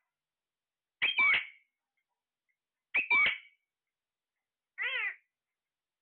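Caged ring-necked parakeets calling: a short two-part squawk twice, about two seconds apart, then a shorter, more tonal call near the end.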